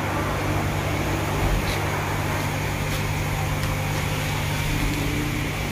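Steady low hum of the self-serve car wash bay's pump equipment feeding the foaming brush, with the brush scrubbing soapy bodywork.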